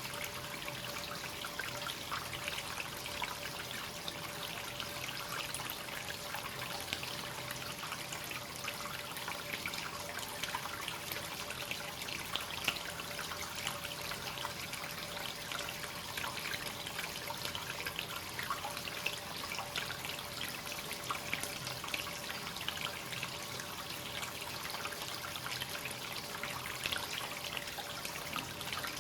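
Free-flowing hot-spring water pouring continuously into a bath: a steady trickle and splash, with a faint steady tone underneath.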